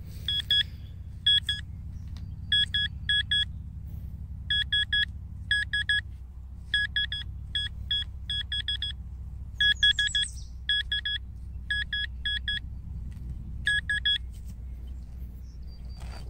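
Metal detecting pinpointer probe beeping in short, same-pitched bursts of two to four beeps as it is pushed through a dug plug of soil, signalling a metal target close to its tip. A steady low rumble runs underneath.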